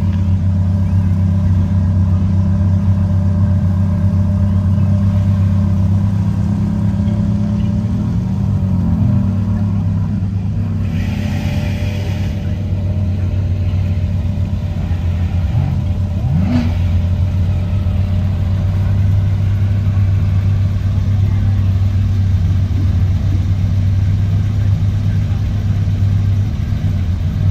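Car engine running steadily, with a short, quick rev about two-thirds of the way through.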